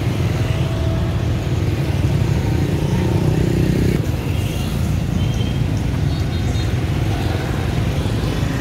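Steady low rumble of street traffic with motorbikes, a little stronger for a second or so about three seconds in.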